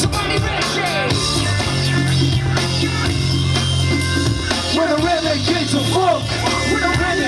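Loud music over a club sound system for a breaking battle, with a heavy bass line and a vocal line over it.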